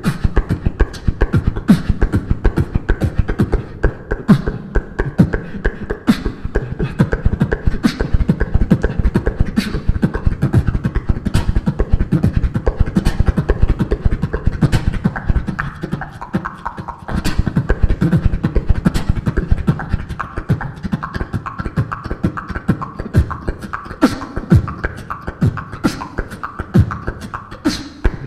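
Solo beatbox routine through a handheld microphone and PA: fast, dense kick-drum and bass sounds under sharp snare clicks on a steady beat, with hummed tones running over them. There is a brief break about 17 seconds in.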